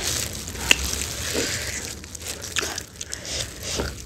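Close-up eating sounds: biting and chewing saucy hot chicken wings, with soft crunches and scattered small wet clicks.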